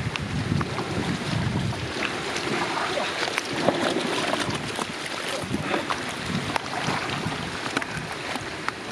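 Water sloshing with many small irregular splashes, with wind rumbling on the microphone.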